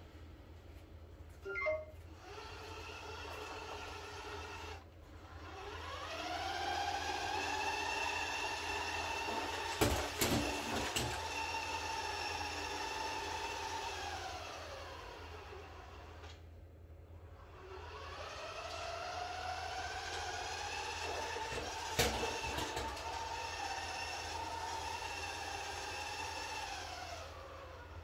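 Neato D7 robot vacuum running, its motor whine twice rising in pitch, holding steady for several seconds, then falling away. A few sharp clicks come near the middle and once more later.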